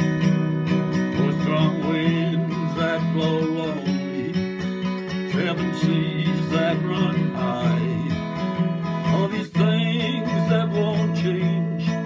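Acoustic guitar strummed steadily in a slow country-folk song, with a man's voice singing along, and a brief break in the strumming about nine and a half seconds in.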